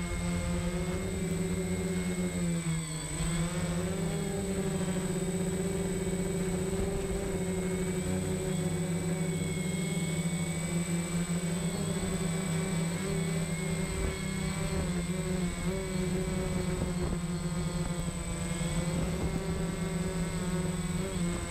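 DJI Phantom quadcopter's motors and propellers whining steadily, recorded by the GoPro mounted on the drone itself; the pitch dips and comes back up about three seconds in as the motors change speed.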